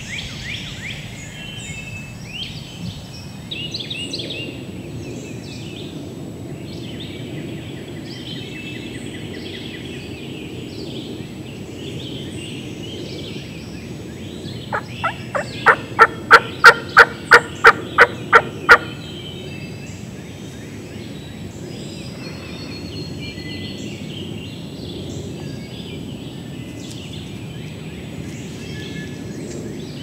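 A run of about a dozen loud, evenly spaced turkey yelps, about four a second, lasting some four seconds, starting about halfway through; small songbirds chirp around it.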